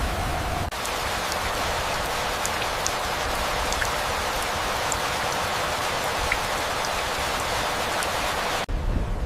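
Heavy rain falling steadily, a dense hiss with scattered individual drop ticks. It drops out for an instant about a second in. Near the end it changes abruptly to a deeper, low rumble.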